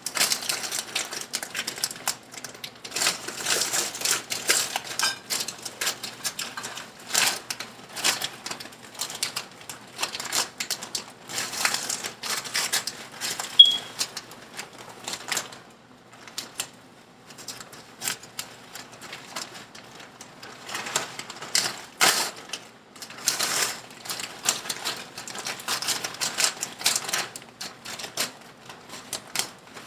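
Cauliflower rice being put into a pan and worked with a utensil: irregular clusters of clattering, tapping and scraping. A single short, high beep sounds about fourteen seconds in.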